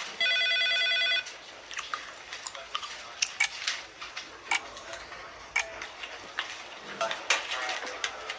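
An electronic beep, a steady pitched tone lasting about a second, then scattered light clicks and taps.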